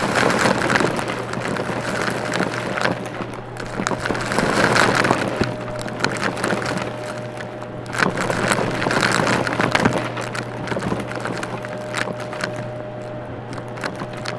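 Vacuum cleaner running over a rug and sucking up crunchy debris: a steady motor hum and whine under a crackling, rattling stream of bits being pulled in. The crunching comes in louder spells about four to five seconds in and again about eight to ten seconds in.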